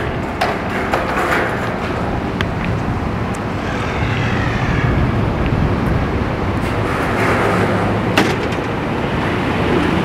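Outdoor traffic noise: a steady low rumble of vehicles, with a few sharp clicks.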